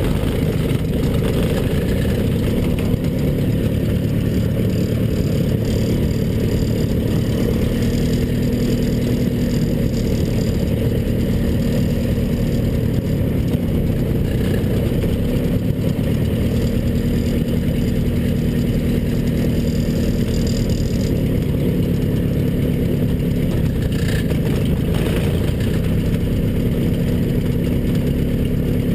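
The Zlin Z-126's four-cylinder Walter Minor engine running at low taxi power, heard from inside the cockpit. It runs steadily, with small rises and falls in pitch as the throttle is worked.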